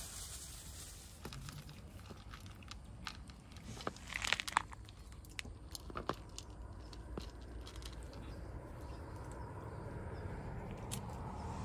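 A cat crunching and chewing dry kibble: irregular crunches and clicks, thickest about four seconds in.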